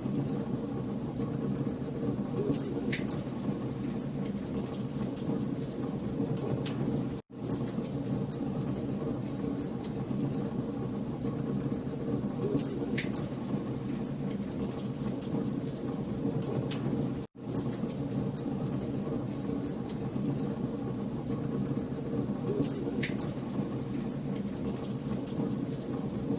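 Wood fire burning in a fireplace: a steady hiss and rumble with frequent small crackles and sharp pops. The sound cuts out for an instant twice, about ten seconds apart.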